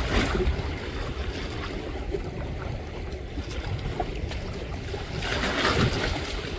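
Wind buffeting the microphone over the wash of sea waves, the surf swelling louder about five seconds in.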